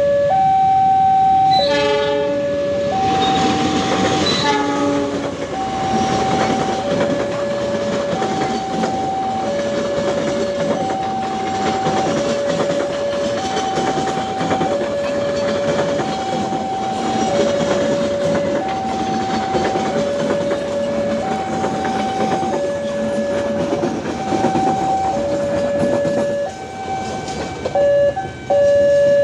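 A two-tone warning siren alternates steadily between a higher and a lower note, each held about a second. A train's horn sounds about two seconds in and again around four seconds, and the train passes with a rumbling clatter of wheels on rails that fades out near the end.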